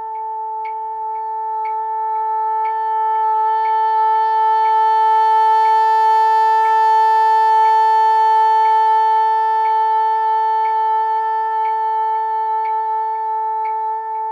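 Bassoon holding one long note in its top octave, swelling louder toward the middle and then tapering off softer, over a metronome clicking about once a second. A slight quiver from uneven lip pressure is what the player hears in such top-octave tones.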